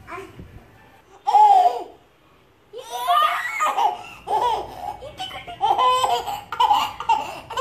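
Baby laughing: one short laugh about a second in, then, after a brief pause, a run of repeated high-pitched belly laughs.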